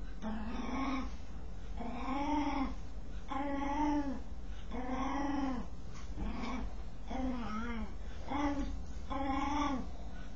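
A dog making a strange vocal noise while scratching itself: about eight short pitched calls, each rising then falling, repeated roughly once a second.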